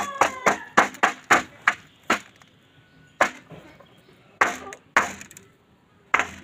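Fighting rooster pecking rice from a metal basin, its beak striking the pan in sharp clicks: quick pecks about three a second at first, then a few pecks spaced about a second apart.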